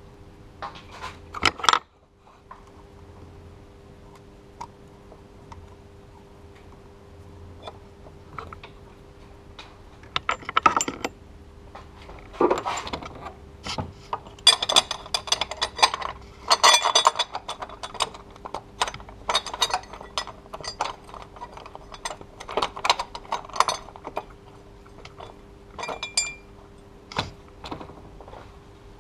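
Metal parts and tools clinking, tapping and rattling as a steel bracket and its bolt are fitted over the serpentine belt tensioner of a Mercedes M104 engine. The clicks come in scattered clusters, busiest from about the middle of the stretch.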